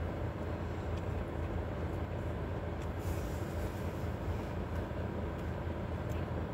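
Steady low rumble inside a car cabin, with a few faint clicks.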